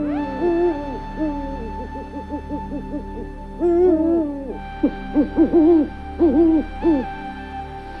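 An owl calling: runs of short hoots that rise and fall in pitch, coming in clusters, over a soft sustained music bed.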